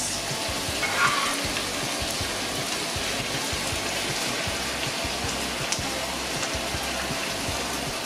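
Sliced red onions sizzling in hot olive oil in a pot: a steady frying hiss with fine crackling as they go in. Quiet background music plays under it.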